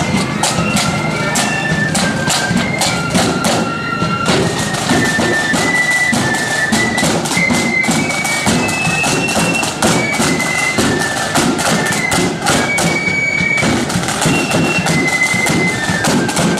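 Marching flute band playing a tune: high flutes carry the melody over a steady beat of snare drums and bass drum.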